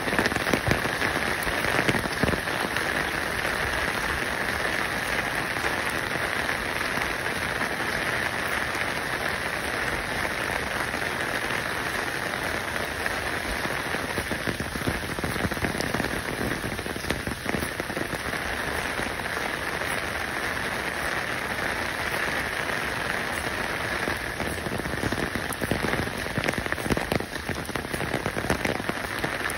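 Steady water ambience: an even hiss full of fine crackling and pattering, with no clear rhythm.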